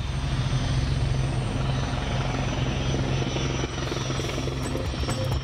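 Sikorsky S-64 Air-Crane heavy-lift helicopter flying with a transmission-tower section slung beneath it: a steady, deep rotor beat over turbine noise. A run of sharp clicks comes in near the end.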